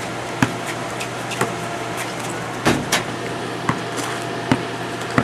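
Steady background hum and noise, broken by a handful of sharp, irregularly spaced knocks.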